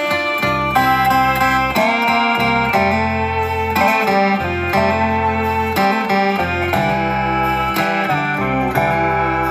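Background instrumental music, guitar-led, with sustained notes changing over a moving bass line.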